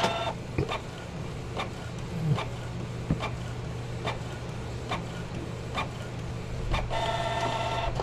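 Canon G1010 inkjet printer printing a nozzle check pattern: short clicks about twice a second over a low hum, then a motor whirring near the end as the sheet is fed out.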